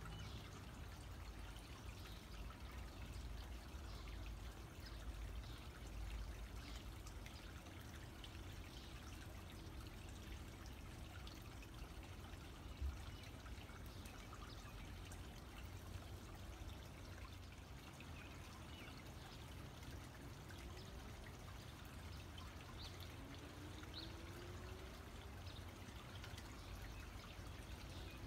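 Faint water trickling steadily in a shallow rocky pool, with small splashes from a female Baltimore oriole bathing, over a low steady rumble. A single sharp knock about 13 seconds in.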